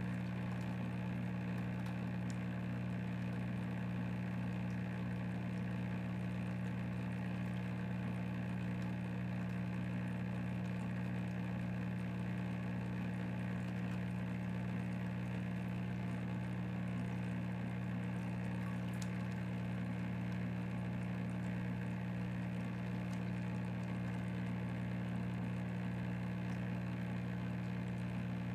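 Test tank's pump motor running, a steady low hum that does not change.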